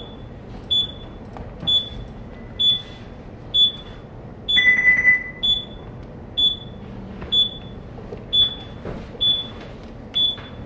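Electronic alarm on a ship's bridge simulator beeping about once a second, a short high beep each time. About halfway through, a longer, lower tone sounds for just under a second and is the loudest thing heard.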